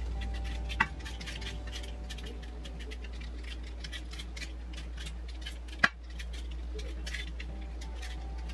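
Hand-held vegetable peeler scraping the skin off a raw potato in quick, repeated short strokes. Two sharp clicks, about a second in and near six seconds, are the loudest moments.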